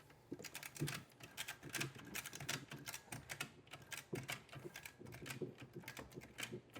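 Ratchet straps on the Anderson dollies clicking as they are cranked tight, a quick uneven run of sharp clicks several times a second. The ratchets are taking up the weight of a heavy vending machine, raising it off the floor.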